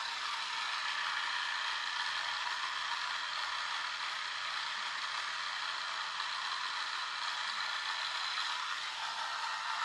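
Small electric drive motor and plastic gear train of a Lego-clone RC car running steadily, a high whir with a gear rattle.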